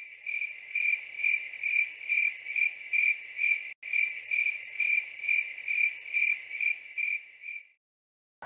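Cricket chirping, dubbed in as a sound effect: a steady high chirp pulsing about two to three times a second, with a brief break near the middle, starting and cutting off abruptly.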